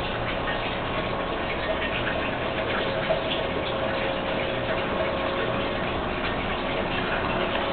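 A dog at a floor bowl, its mouth and the bowl making faint, irregular clicks over a steady hum with a fixed tone.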